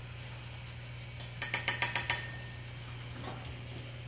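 A quick rattle of about seven or eight sharp clicks lasting about a second, over a steady low hum.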